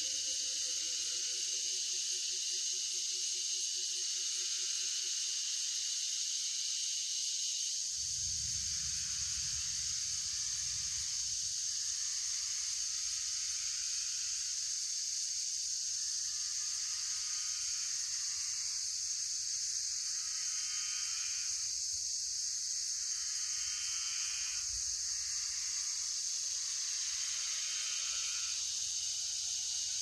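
Steady high-pitched dusk insect chorus in a eucalypt forest. A low wavering call sounds in the first few seconds, a low rumble comes in about a quarter of the way through, and from about halfway a buzzy insect call repeats in short bursts a few seconds apart.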